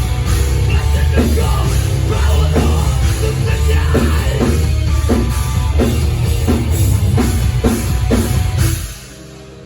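Heavy metal band playing live, loud, with a heavy low end and drums hitting about twice a second. The band cuts off abruptly near the end, leaving a quieter sustained ringing.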